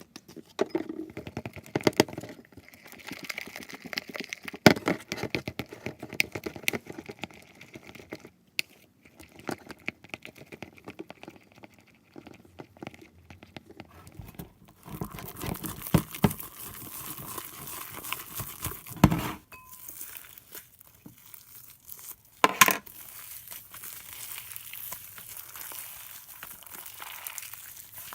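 Homemade glue slime being kneaded and squished by hand: a continuous run of small crackles, clicks and pops, with a few louder snaps now and then.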